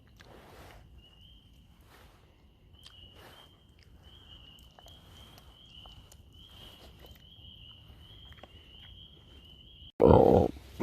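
A faint, high-pitched chirping trill from a calling insect or frog keeps going in the background, over soft scattered rustles. Near the end there is a brief dropout, followed by a loud, short rustle or thump close to the microphone.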